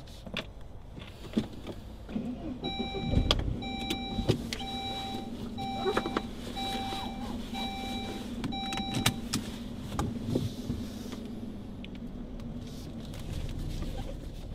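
Sounds inside a parked car: several clicks and knocks, and a car's electronic warning chime beeping about seven times, roughly once a second, then stopping, over a steady low hum.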